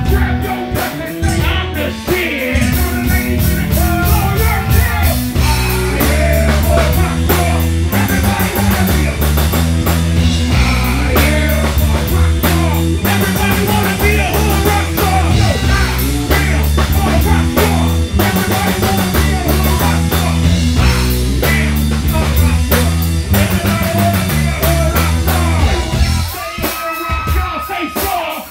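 Live rap-rock music over a PA: a heavy bass line, drum kit and electric guitar under rapped vocals. Near the end the bass drops out and a single held tone rings over a thinner backing.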